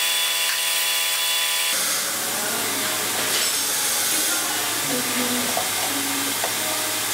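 Warco Super Mini Lathe's brushless motor running with a steady whine, which stops abruptly about two seconds in. A steady hiss with a few small clicks follows.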